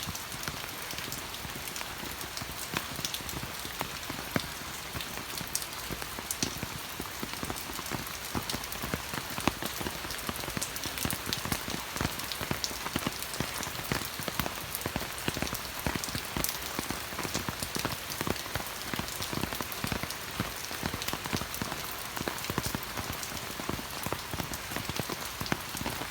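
Steady rain falling, with many separate drop hits heard as short sharp ticks over an even hiss.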